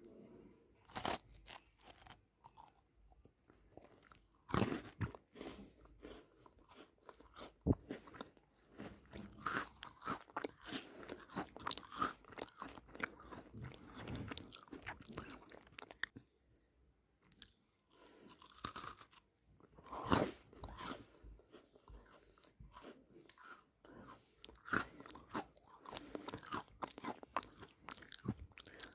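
Close-up crunching and chewing of a chocolate-coated Oreo cookie (Cadbury Oreo Dipped): a few sharp crisp bites, the loudest about 4 and a half and 20 seconds in, between stretches of steady crunchy chewing.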